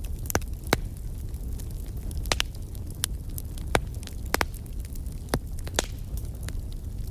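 Wood fire burning in a fireplace: a steady low rumble of the flames with sharp irregular crackles and pops from the burning logs, about a dozen in a few seconds.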